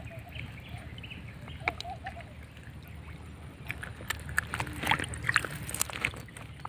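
Pond water sloshing and small splashes, with scattered light clicks, as hands work a monofilament gill net in the water to free a caught fish; the splashing is busiest about four and a half to five and a half seconds in, over a low steady rumble.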